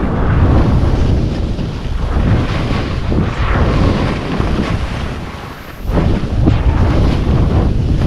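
Wind rumbling and buffeting on the microphone as a skier makes fast turns down a steep slope, mixed with the hiss and spray of skis cutting through soft snow. The noise surges from turn to turn and eases briefly about two-thirds of the way through.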